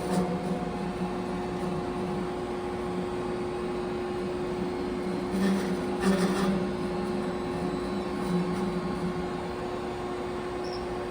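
Machine tool running steadily while cutting an elevator sheave: a constant hum with one held tone and a lower drone that comes and goes, louder for about a second roughly five and a half seconds in.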